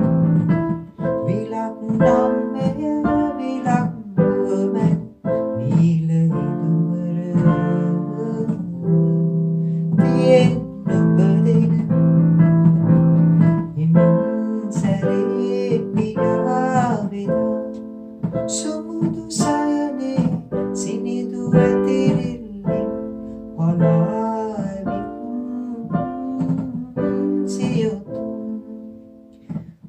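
Digital piano playing a Sinhala song with melody and chords, with a man's voice singing along in places.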